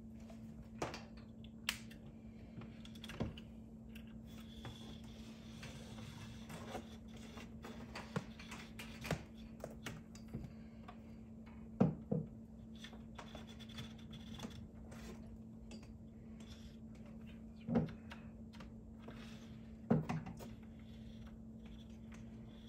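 Handling noise as a thin cable is fed into an open plastic EV charger enclosure: scattered light clicks and taps, with a few louder knocks near the middle and twice near the end, over a steady low hum.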